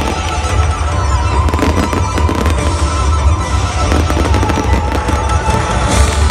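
Fireworks display: rapid bangs and crackling from aerial shells and spark fountains, over loud music with heavy bass.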